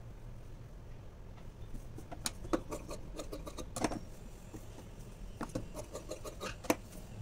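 Cloth rustling with irregular light clicks as a blouse is folded and smoothed by hand on a tailoring table. The handling comes in two spells, the second around the time the scissors are brought to the fabric, over a steady low hum.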